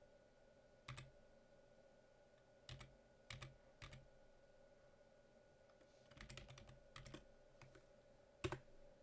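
Computer keyboard keys pressed one at a time, about ten scattered taps with a quick run of several about six seconds in, over a faint steady hum.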